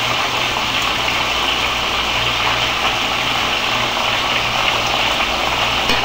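Breaded country-style steaks sizzling steadily in hot grease in a cast-iron skillet, all but done frying.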